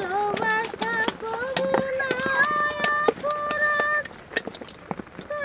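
A woman's singing voice carrying a melody, with long held notes that slide from one pitch to the next, over short sharp clicks.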